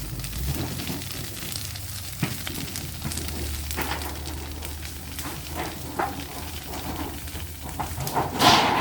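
Burning debris pile crackling and popping with a steady hiss. A louder rushing burst comes near the end.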